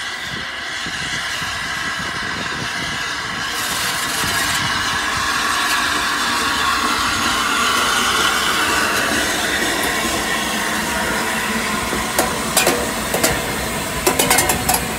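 The Flying Scotsman, an LNER A3 Pacific steam locomotive, running round its train alongside the carriages. Its hiss and rumble build up over the first several seconds as it draws level, and there is a run of sharp metallic clanks near the end.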